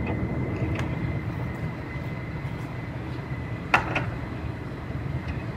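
Steady low rumble of body-shop background noise with a faint, thin, steady high whine, a few light clicks, and one sharp click a little under four seconds in.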